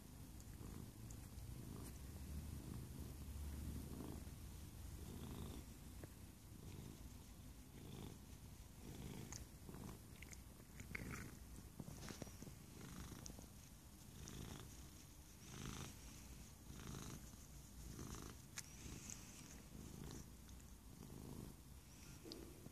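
Domestic cat purring quietly and continuously, the purr swelling and fading in a slow, even rhythm with each breath in and out.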